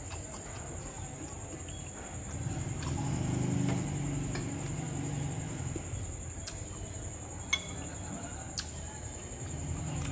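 Mukbang eating sounds: chewing with a closed-mouth hum, and a few light clinks of a metal spoon and fork against the bowl, the sharpest about seven seconds in. A steady high-pitched tone sits underneath.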